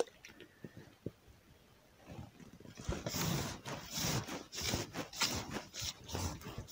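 Irregular rustling and crackling of dry reeds and branches as the angler moves among them handling the rod. It comes in quick uneven bursts starting about two seconds in.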